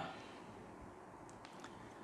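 Very quiet room tone with a couple of faint ticks about midway.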